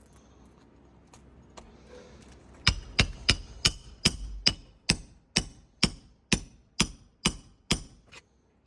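Hammer striking on a shingle roof, about thirteen sharp blows starting nearly three seconds in, quicker at first and then about two a second, as in hand-nailing a repair shingle.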